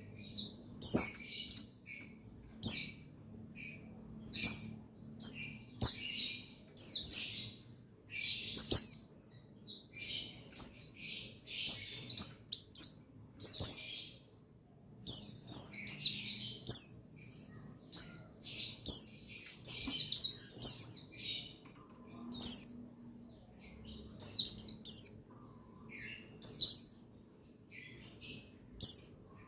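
Buxtoni white-eyes (pleci buxtoni) chirping: quick runs of short, high notes that sweep downward, one to two runs a second with brief pauses between them.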